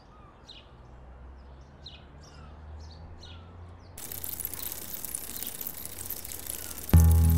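Small birds chirping in short repeated calls over a faint low hum. From about four seconds a steady gritty hiss of a flywheel-driven grain mill grinding grain into flour takes over. Near the end, music starts suddenly and loudly.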